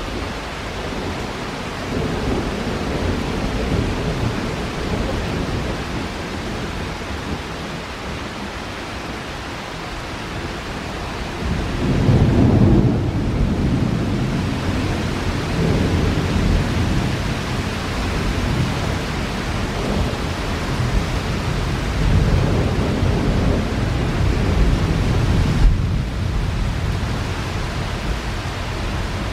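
Steady heavy rain with thunder rolling. A louder, long roll of thunder comes about twelve seconds in and rumbles on for several seconds.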